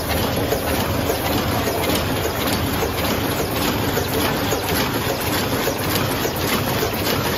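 Paper cup making machine running at production speed: a steady, dense mechanical clatter of fast, closely spaced clicks over a low hum.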